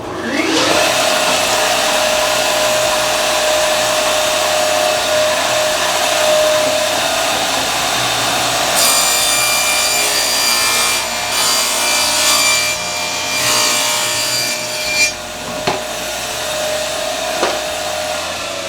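Table saw starting up and cutting wood: the motor whines up to speed, then runs steadily while the blade cuts, with the cutting noise getting harsher and rising and falling through the middle. There are two sharp knocks near the end, and the whine dips as the saw shuts off.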